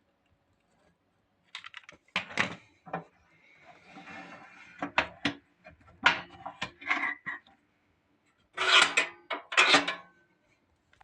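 Handling noises: irregular knocks, clatters and scraping, with two louder, longer scrapes near the end.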